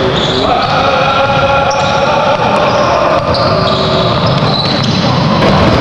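Basketball game sounds in a large gym: the ball bouncing and players' shoes on the hardwood. Held tones that step in pitch run over it.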